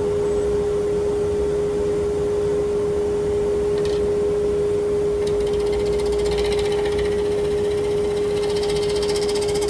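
Wood lathe running at a steady speed, its motor giving a constant whine over a low rushing noise.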